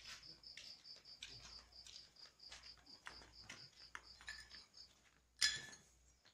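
Cricket chirping in a steady run of high pulses, about five a second, with scattered footsteps and clicks. About five seconds in comes a brief loud rustling noise.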